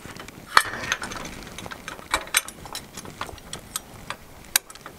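Scattered metal clicks and clinks as a steel foot plate is fitted back onto the bottom of a drill-powered trailer jack, with the sharpest clicks about half a second in, just past two seconds and near the end.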